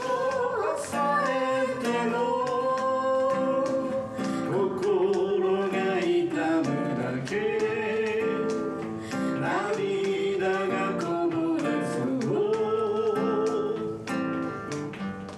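A singer holding long sung notes over strummed acoustic guitar in a live performance.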